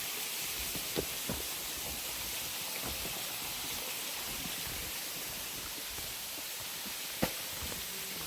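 Steady rushing hiss of running water, with a few sharp clicks or knocks, the clearest about a second in and near the end.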